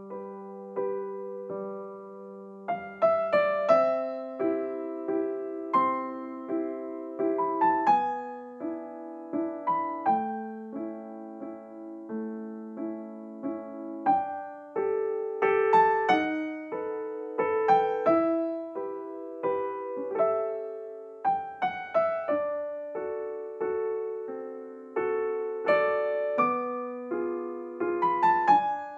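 Piano music: notes and chords struck one after another and left to ring and fade.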